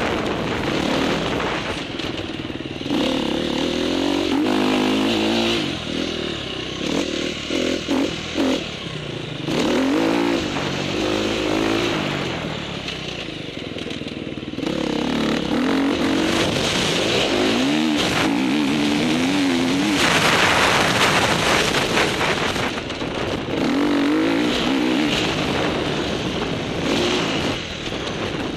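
Motocross bike engine revving up and down as the rider accelerates, shifts and rolls off through the track's turns and jumps, over a steady rushing noise.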